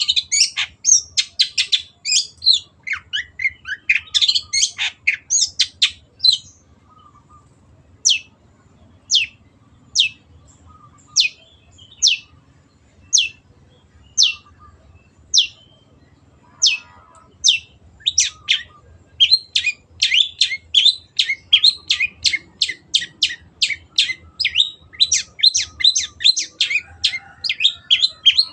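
Long-tailed shrike singing: a fast jumble of varied sharp notes, then single sharp notes about once a second, then a quick run of repeated notes, three or four a second, near the end.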